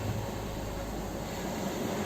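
Ocean surf on a shore: a steady, low rushing noise of waves without separate crashes.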